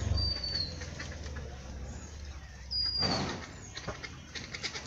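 A bird's short, high whistle falling in pitch, heard twice about two and a half seconds apart. A brief rustling burst comes about three seconds in, and a run of quick ticks near the end.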